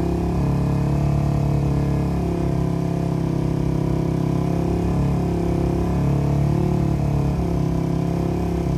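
Yamaha Y15ZR motorcycle's single-cylinder four-stroke engine held at a steady 4,000 to 4,500 rpm through an MB Performance standard-cut aftermarket exhaust. It reads about 95 dB, under the 99 dB limit allowed for motorcycles over 125cc.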